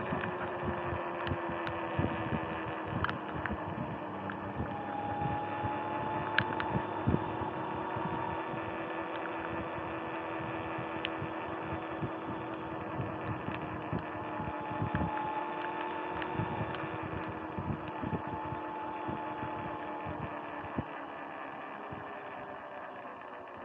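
Sur-Ron X electric dirt bike cruising: a motor and drivetrain whine made of several steady tones that drift slowly in pitch with speed, over tyre and wind noise, with scattered sharp ticks. It eases off and grows quieter near the end as the bike slows.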